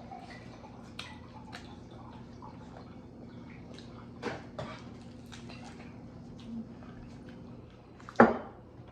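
Eating sounds: scattered light clicks and taps of dishes and food, with one loud sharp knock about eight seconds in, over a low steady hum.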